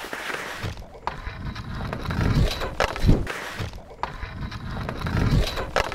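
Skis sliding and scraping over packed snow, picked up on a body-worn mic as a rough rumble that surges every second or so, with a few sharp knocks.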